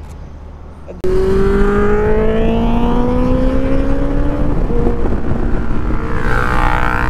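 Motorcycle engine accelerating with wind rush. About a second in the sound jumps suddenly louder, and the engine's pitch climbs steadily, drops at a gear change about halfway through, then rises again.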